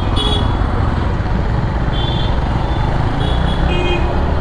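Steady low rumble of a motorcycle being ridden through slow city traffic, heard from a camera mounted on the bike, with wind on the microphone. A few short, high beeps sound over it: one at the start, one about two seconds in, and a pair near the end.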